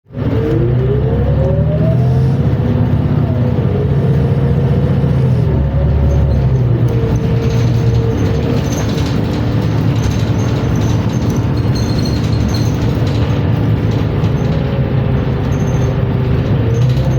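New Flyer XN60 articulated bus's transmission whining over the low rumble of the engine. The whine rises in pitch over the first couple of seconds, then holds steady with a dip partway through. It is an unusual transmission whine.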